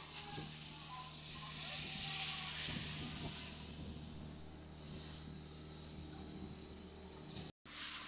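Skis and snowboards scraping and sliding over packed snow: a hiss that swells and fades as riders pass close, loudest about two seconds in, over a faint steady low hum.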